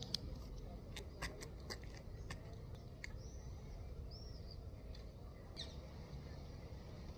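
Faint outdoor quiet with a few short, high bird chirps near the middle. Light scattered clicks come in the first few seconds.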